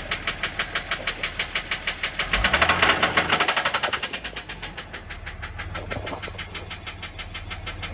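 2006 Dodge Ram pickup's engine running with a loud, regular knock, about six a second at idle. It is revved briefly about two and a half seconds in, the knocks getting louder and quicker, then drops back to idle. The owner cannot say what causes the knock; the engine is also making heavy white smoke.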